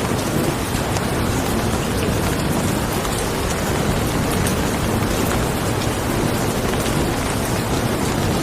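Steady heavy rain: a dense, even hiss with a deep low rumble underneath.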